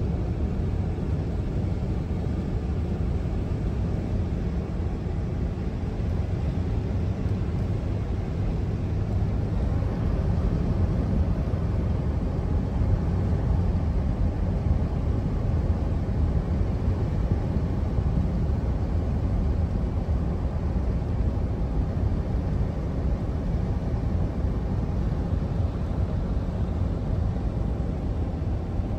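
A van driving on a highway: steady low road and engine noise with no change in speed.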